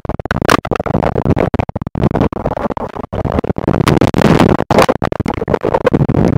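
Water rushing and sloshing over a submerged camera's microphone, heard as a loud, harsh crackling and scratching noise that keeps cutting out for split seconds.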